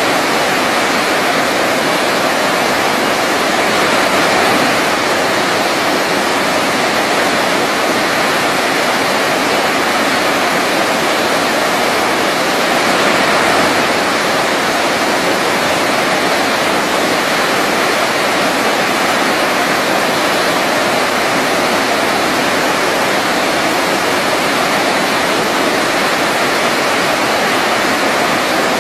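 Waterfall rushing steadily: an even, unbroken wash of falling water that stays at the same level throughout.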